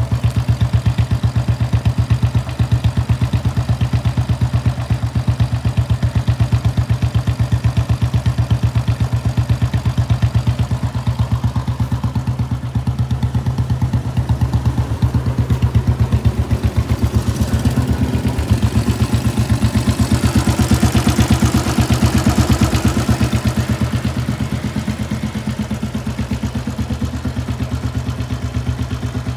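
1980 Royal Enfield Bullet 350's single-cylinder four-stroke engine idling through twin exhausts, with a steady, even thump. For a few seconds past the middle it sounds louder and breathier, with added hiss.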